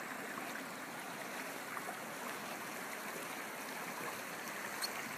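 Steady rush of a shallow mountain stream flowing past, with one faint click near the end.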